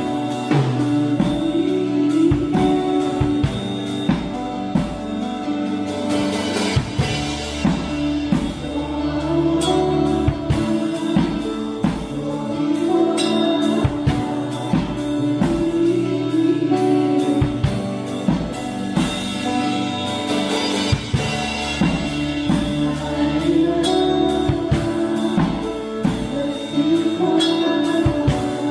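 Live band music: a male voice singing over strummed acoustic guitar, keyboard and a drum kit keeping a steady beat.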